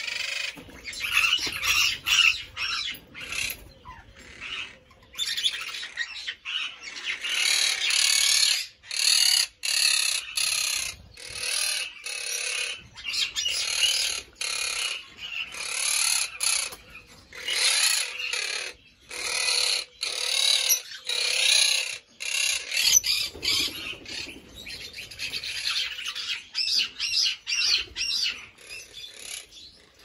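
A mixed flock of captive parrots and parakeets calling: loud, shrill calls one after another with only short breaks.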